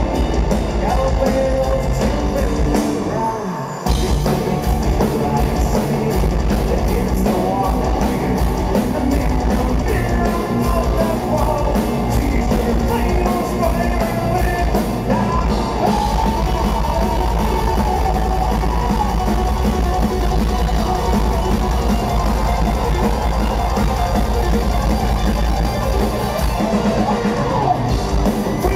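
Live power metal band playing loud: a singer over electric guitar, bass, keytar and drum kit. The band briefly drops out about three seconds in, then comes crashing back in.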